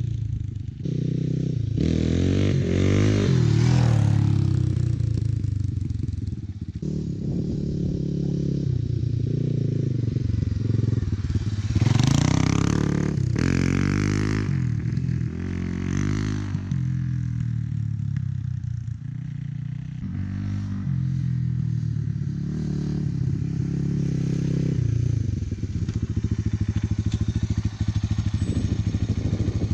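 1996 Suzuki DR350's single-cylinder four-stroke engine through a SuperTrapp exhaust while the bike is ridden, revs rising and falling again and again as it pulls, with the strongest pulls about three seconds and twelve seconds in.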